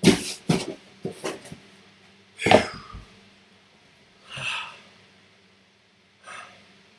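Handling noise from a shrink-wrapped cardboard trading-card hobby box being pulled from the case and set down on the table: a few short knocks and rustles, the loudest about two and a half seconds in, then a softer one or two.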